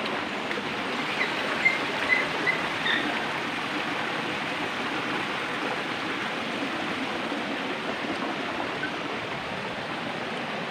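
Steady hiss of a rocky mountain stream, water running over boulders, with a few short high chirps in the first few seconds.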